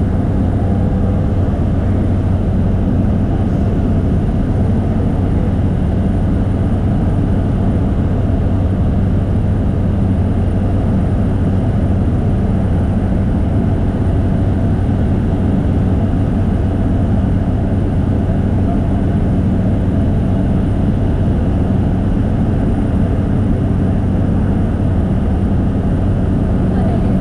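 Propeller airplane in flight, its engine and propeller making a steady, loud drone with a low hum that does not change.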